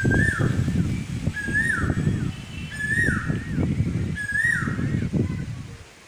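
Asian koel (koyal) calling: four rising-then-falling whistled notes, one about every second and a half, over low rumbling noise. The sound fades out near the end.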